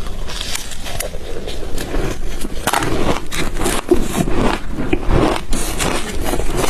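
Ice being crunched and chewed close to the microphone: a continuous run of irregular crackling, scraping crunches.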